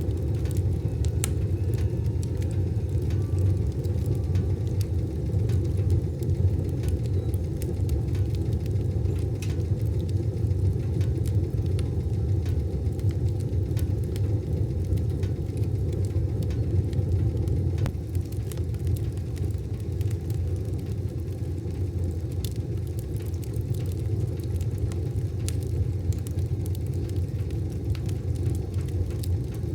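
Wood fire burning in a wood stove: a steady low rumble with scattered sharp crackles and pops.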